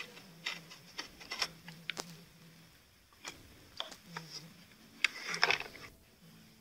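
Crisp crackling and crunching as brittle coloured layers are snapped and crumbled by hand, in several short bursts with the loudest cluster about five seconds in.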